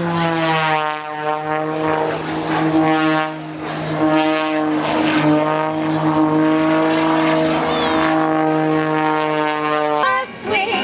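Propeller aircraft engine droning at a steady pitch, dipping slightly in pitch at the start. Music starts abruptly near the end.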